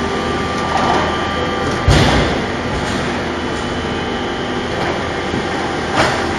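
Veneer peeling lathe and reeling machinery running: a steady mechanical rumble with a heavy thump about two seconds in and a lighter knock near the end, then an abrupt cut-off.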